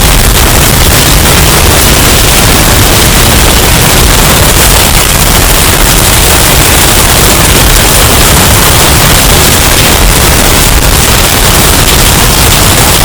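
Hurricane wind sound effect, heavily bass-boosted and distorted into a steady, clipped rush of noise with a heavy low rumble and no breaks.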